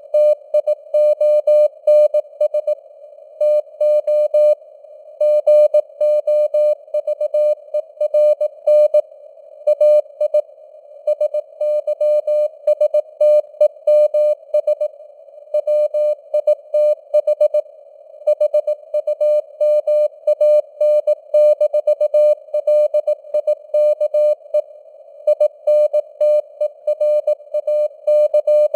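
Morse code (CW) sent at 18 words per minute as a single beep tone keyed on and off in dots and dashes, over a narrow band of simulated radio hiss. The signal strength fades up and down a little, like QSB on a shortwave band.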